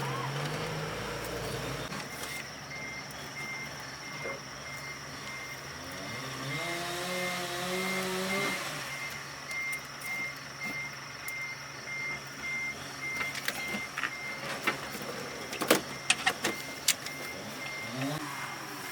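A regular electronic beep: a short high tone repeating steadily at an even rate from about two seconds in. A brief rising, pitched drone comes in the middle, and a few sharp clicks come near the end.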